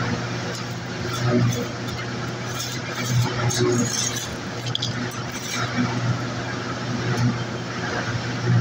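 A steady engine hum, like a motor idling close by. Faint short scratches come through now and then, from a metal scriber being drawn across galvanized steel sheet.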